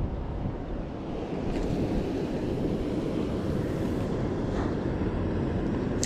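Steady wind noise buffeting the microphone, with a single sharp click right at the end.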